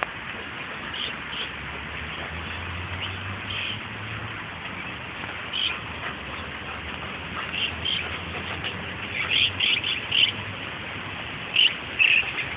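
Birds chirping in short, high calls, more often near the end, over a steady low background rumble.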